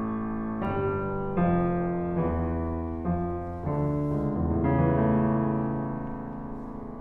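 Background music: a slow piano piece, with new sustained chords or notes struck about once a second.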